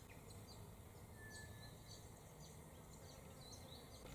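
Near silence: faint open-air ambience with scattered, distant small bird chirps.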